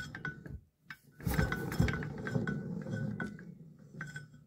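Crankshaft of a J.A.P. charging-set engine being turned by hand, its bearing rumbling with metallic clinks, in two turns: a short one ending just after the start and a longer one from about a second in. The owner takes this for a slightly noisy crankshaft bearing, though there is no play in it.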